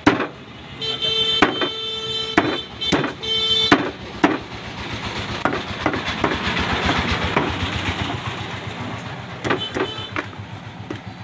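A vehicle horn sounds in two blasts, a long one and then a shorter one, in the first four seconds. After that, a passing vehicle's engine swells and fades. Sharp cleaver chops on a wooden chopping block come through now and then.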